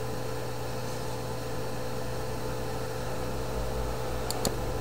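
Steady low electrical hum with a constant hiss, the recording's background noise, and a few faint clicks about four and a half seconds in.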